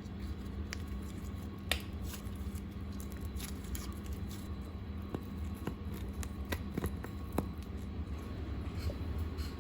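Hands working slime, giving scattered small sticky clicks and squishes over a steady low background hum.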